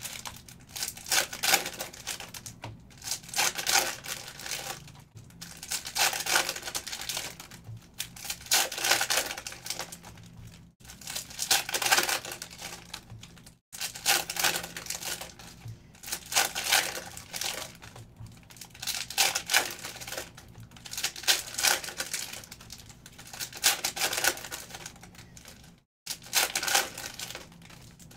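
Panini Optic football trading cards being flicked through by hand, a rapid run of clicking card edges in repeated bursts every couple of seconds. The crinkle and tearing of foil pack wrappers being opened mixes in.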